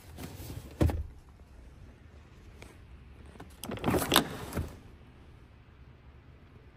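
Handling noises inside a car's cabin: a sharp knock about a second in, then a cluster of rustles and clicks around four seconds in.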